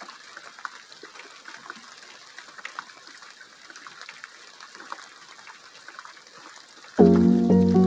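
Rain falling: a steady hiss of rain full of small raindrop ticks. About seven seconds in, loud music with chords and a stepping melody cuts in abruptly over it.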